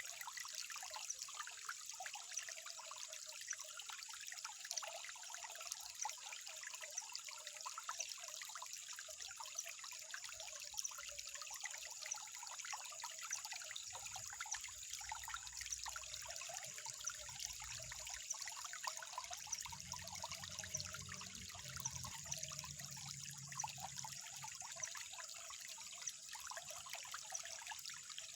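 Water trickling steadily in a constant fine splashing. A faint low rumble joins about halfway through.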